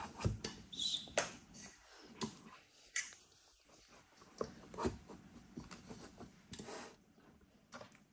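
Soft, irregular taps and knocks of stuffed sweet peppers being set into a cooking pot, thinning out near the end.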